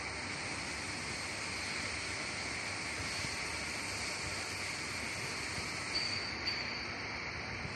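Steady high hiss of background noise, with a brief faint tone and a couple of soft clicks about six seconds in.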